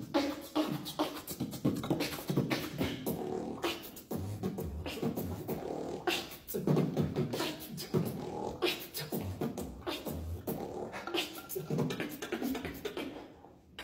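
Live beatboxing: mouth-made drum sounds, sharp clicks and low thumps in a driving rhythm, mixed with pitched hummed tones. It breaks off briefly near the end.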